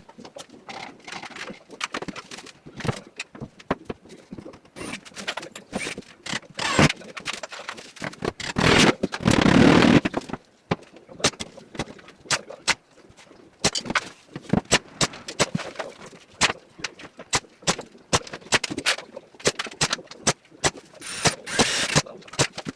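Carpentry worksite sounds: a dense, irregular run of sharp knocks and clicks from tools and timber, with a louder scraping burst about nine seconds in.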